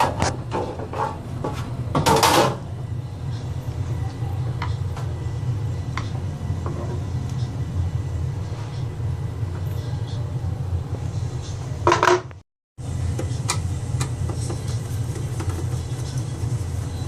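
Clicks and metal clatter of a server case and its parts being handled, loudest in the first two or three seconds and again about twelve seconds in, over a steady low hum.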